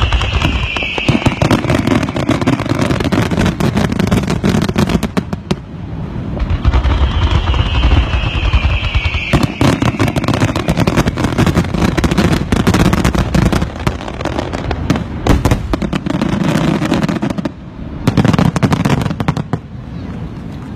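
Fireworks going off in a dense run of rapid crackling pops, with a falling whistle twice. The crackling breaks off briefly, comes back in a last short burst, then dies down near the end.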